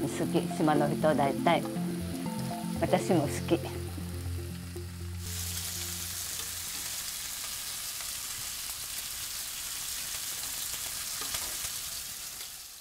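Slices of pork belly sizzling as they fry in a pan, turned now and then with chopsticks. The sizzle grows loud and steady about five seconds in.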